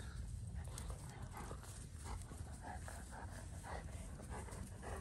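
A German Shepherd puppy and an older dog play-fighting: a quick, irregular run of short dog noises and scuffling.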